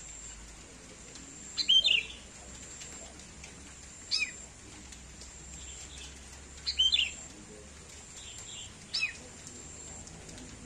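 Sooty-headed bulbul giving cat-like calls: four short calls sliding down in pitch, about two and a half seconds apart, the first and third longer and louder than the others.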